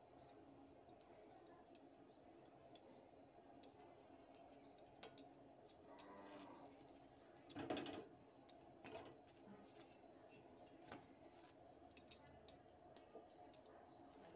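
Near silence with soft scattered clicks and light scrapes as slices of bread are pressed, shifted and turned by hand on a flat tawa over a gas burner. One brief louder scrape comes about eight seconds in.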